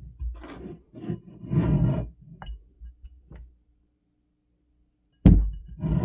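3D-printed plastic ball joint being worked by hand: a run of clicks and rubbing clatter, then a pause and a sharp, loud knock about five seconds in, followed by more clatter.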